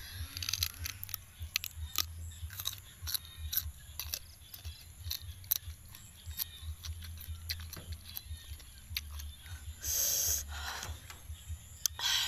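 A person biting into and chewing crisp slices of unripe green mango close to the microphone: wet crunching and many small mouth clicks, with a louder noisy sound lasting about a second around ten seconds in.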